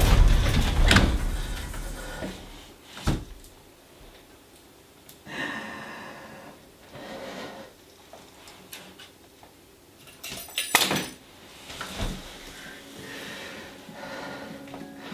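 A loud boom fades away at the start. Then a door handle and lock are quietly tried at an apartment door: scattered clicks and knocks, with a short rustle, and a cluster of clicks about eleven seconds in.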